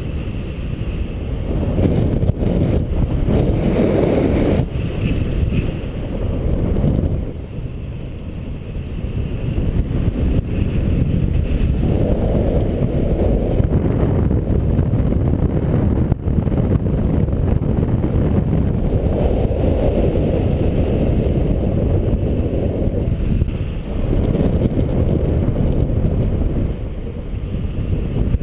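Wind noise from the airflow of paraglider flight buffeting the microphone. It is a low rushing that swells and eases every few seconds.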